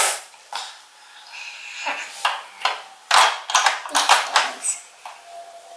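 Hard plastic Playmobil toy pieces clicking and knocking as figures are handled and pressed into the toy jet's cabin seats: an irregular string of sharp clicks, thickest in the middle.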